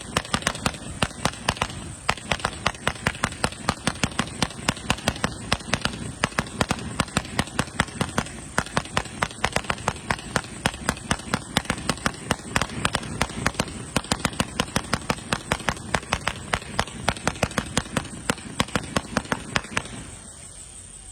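A 666-shot, 2-inch fireworks cake firing a rapid, steady string of shots, about three a second, over continuous crackle. It stops abruptly near the end.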